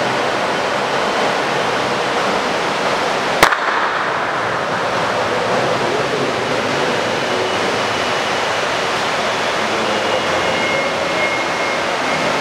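A single sharp hand clap about three and a half seconds in, its echo ringing on briefly in a vaulted underground brick cistern. Under it, a steady rushing hiss.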